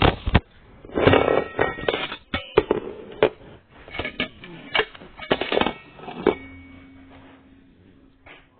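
Knocks, clicks and rattles of a ceiling fan being handled and turned over, irregular for about six seconds, then a faint steady hum near the end.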